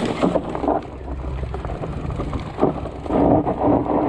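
Fat bike rolling downhill over a dirt singletrack: knobby tyres crunching over the ground and the bike rattling, with wind rumble on the helmet camera. About three seconds in a steady buzz joins in as the bike rolls onto smoother ground.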